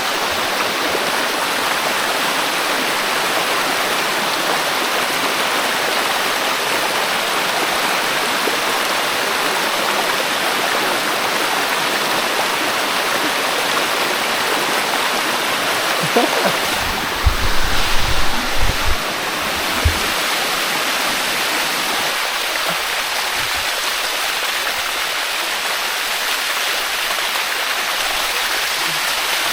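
Water rushing steadily down the rock cascade of a waterfall. A few low bumps come about two-thirds of the way through.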